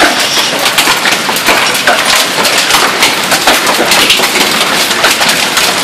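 Golf-ball-sized hail falling hard with rain: a loud, dense clatter of hailstones hitting the concrete patio, the patio furniture and the ground.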